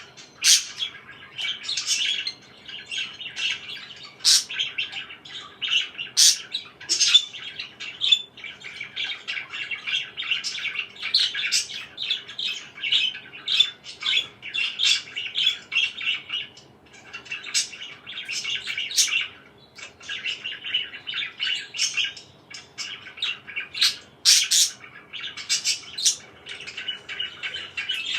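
Pet parakeets chirping and chattering nonstop, with frequent short, sharp squawks cutting through.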